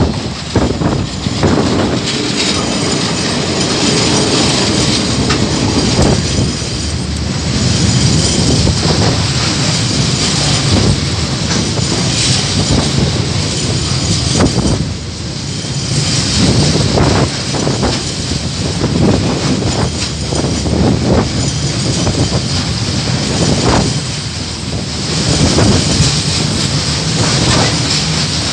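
KiwiRail coal train passing close by: the diesel locomotive arrives at the start, then a long string of flat wagons loaded with coal containers rolls past, wheels clattering over the rail joints in repeated clusters.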